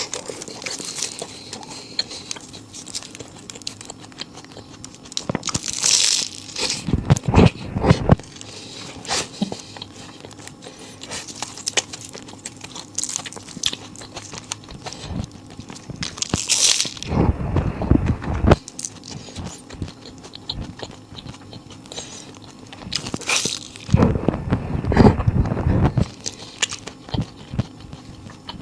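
Crunchy bites into flaky egg-tart pastry, several separate crunching bursts with quieter chewing in between.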